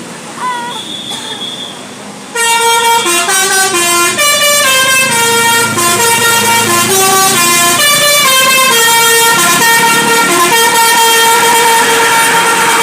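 A bus's telolet basuri musical horn playing a tune, a loud run of horn notes stepping up and down in pitch several times a second, starting suddenly about two seconds in and carrying on.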